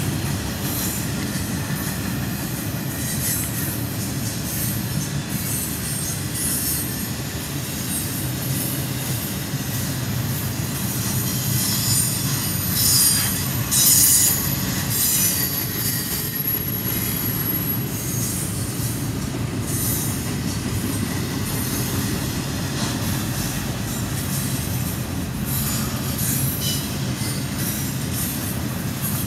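Double-stack container train cars rolling past at trackside: a steady low rumble of wheels on rail with frequent short clicks. About halfway through, a thin high-pitched wheel squeal rises over it for several seconds.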